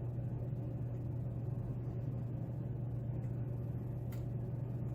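A steady low hum, with one faint tick about four seconds in from the pick working the pins of a pin-tumbler lock.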